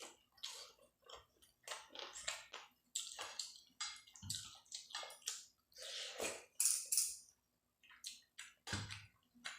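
Close-miked wet chewing and lip smacking of a person eating curry and rice, in quick irregular bursts.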